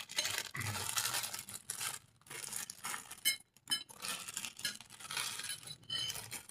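Close-miked eating: crisp crackling and crunching of food, with a few sharp clinks of cutlery on a plate.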